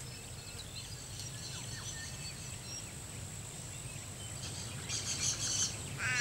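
Outdoor ambience with scattered faint bird chirps over a low hum and a constant high whine. A denser burst of high chirping comes about five seconds in.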